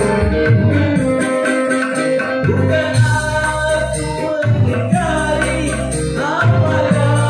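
Live organ tunggal band music, keyboard and guitar over a steady beat with heavy bass, with a man singing into a microphone.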